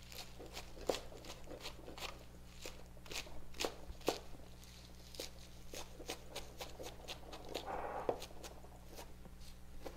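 Chef's knife chopping curly kale on a cutting board: an uneven run of faint, crisp taps, two or three a second.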